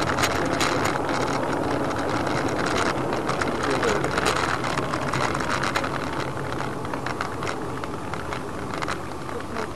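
A car's engine and road noise as picked up by a dashcam in a moving vehicle: a steady rumble with many small clicks and rattles.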